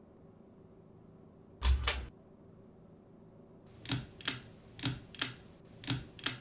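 A single loud bump, then three pairs of sharp mechanical clicks about a second apart, the two clicks in each pair close together.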